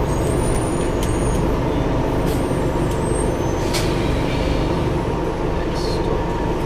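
Scania N230UD double-decker bus's five-cylinder diesel engine running steadily, heard from the upper deck, with a few brief clicks and short hisses over it.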